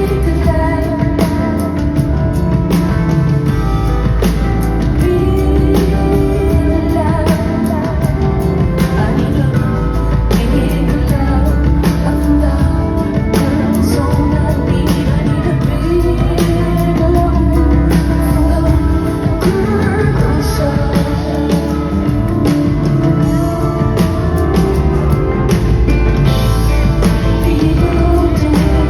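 Live rock music: a woman singing over a band with drums and guitar.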